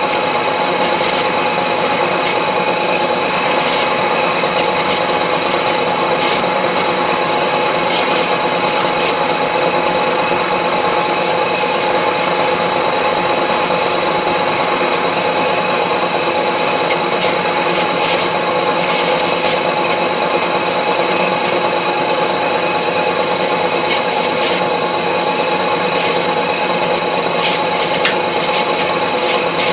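Milling machine running steadily, its motor and spindle giving a constant whine with a few faint clicks scattered through.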